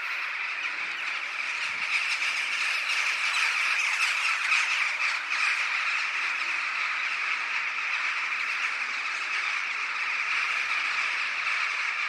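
A large flock of birds calling together in flight, a dense, continuous chatter of many overlapping calls at a steady level.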